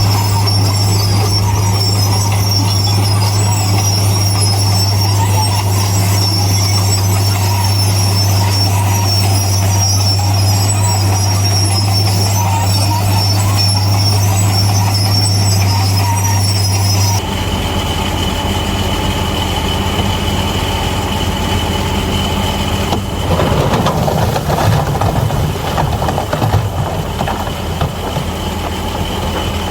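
Bulldozer's diesel engine running steadily with a high-pitched whine over the drone. About halfway through the sound changes suddenly to another steady engine drone with a different whine, and a few seconds later a stretch of irregular rough clatter rises over it.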